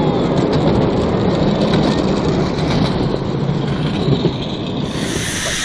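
Miniature railway train rumbling steadily along the track. About five seconds in it cuts abruptly to the even hiss of the 10¼-inch gauge steam locomotive, heard from its cab.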